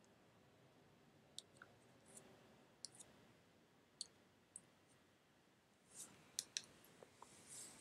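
Near silence: faint room tone with about a dozen small, sharp clicks at irregular intervals, the loudest pair a little over six seconds in.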